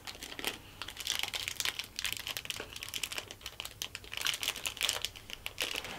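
Close-up crisp crackling and clicking of a macaron being bitten and chewed: the dry meringue shell cracking and crumbling in the mouth, in quick irregular clicks.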